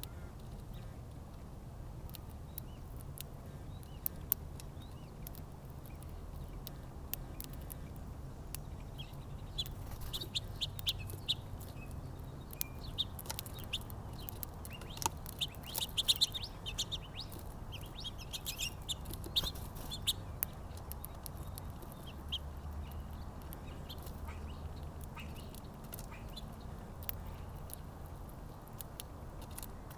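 Small songbirds at a feeder chirping in many short, high chirps, busiest in the middle, over a steady low rumble.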